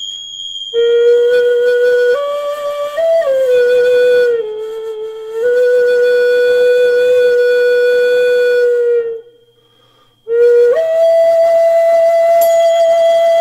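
A flute playing slow, long held notes that step up and down, with a break of about a second some nine seconds in. Under it rings the bright, lasting tone of tingsha cymbals struck just before, and they are struck again near the end.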